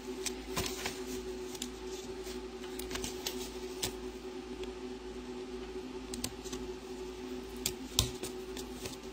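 Scattered light clicks and rustles of hands handling paper and plastic bendy straws, over a steady background hum.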